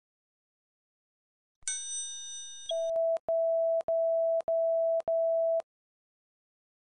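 Censor bleep: a steady beep tone sounds five times in quick succession, each about half a second long, with small clicks between, covering swear words. It is preceded, a little under two seconds in, by a bright ringing ding.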